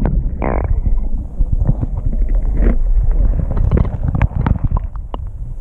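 Stream water heard underwater through a camera housing: a muffled low rumble of moving water with scattered clicks and knocks, and a brief rising pitched tone about half a second in.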